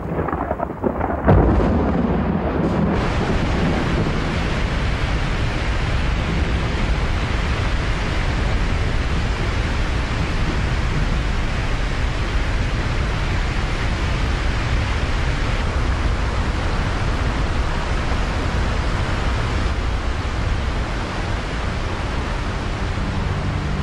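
A thunderclap about a second in, then a steady, dense rush of water with a low rumble beneath it.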